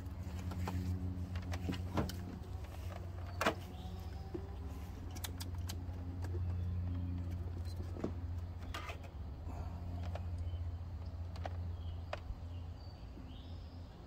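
A steady low hum or rumble with faint pitched tones above it, with scattered short clicks and taps from handling a multimeter and its test leads at the engine bay, the sharpest about three and a half seconds in.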